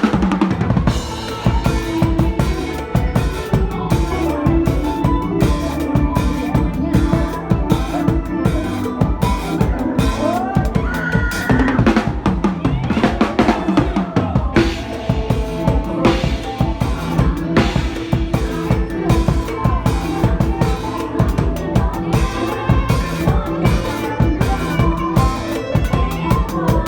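Drum kit played in a fast mor lam beat, with kick drum, snare and rimshots over the band's melody.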